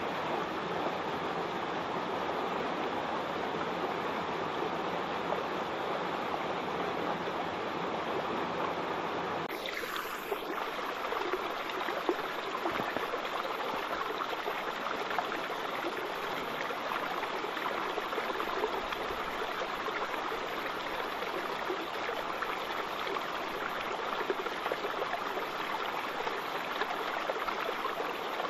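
Waterfall water rushing steadily. About a third of the way in the sound shifts abruptly and loses much of its low rumble.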